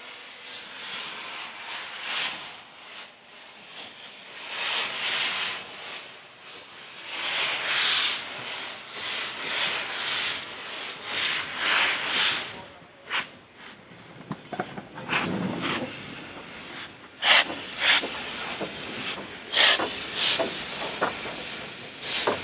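LNER J27 0-6-0 steam locomotive moving off slowly, its exhaust coming as a slow, uneven series of loud hissing steam chuffs with the cylinder drain cocks open. In the second half, sharp metallic clanks and knocks from the engine come through.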